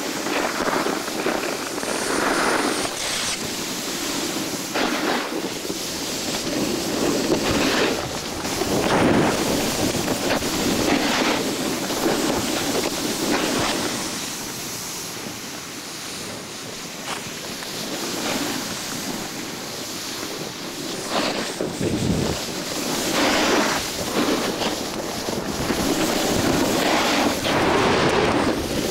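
Wind rushing over a camcorder microphone during a downhill ski run, mixed with the hiss of skis on snow. The noise swells and eases every second or two.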